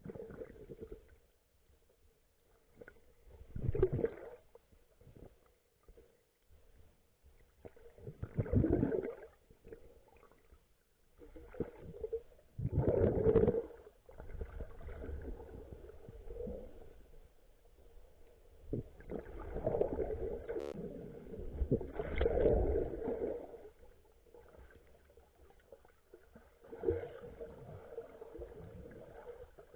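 Water sloshing and gurgling, heard muffled underwater, in surges every few seconds over a low rumble.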